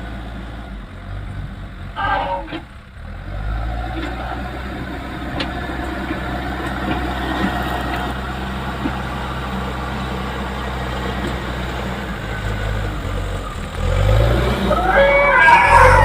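Diesel engine of a Leyland Deere 435 backhoe loader running under load. It drops off briefly about two seconds in, picks up again, and revs up near the end. Near the end a louder sound with wavering pitch rises over it.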